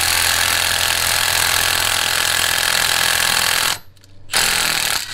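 Milwaukee cordless impact wrench hammering continuously on a nut, driving it along a through-bolt to press a front wheel hub out of its steering knuckle. It stops for about half a second around four seconds in, then starts hammering again.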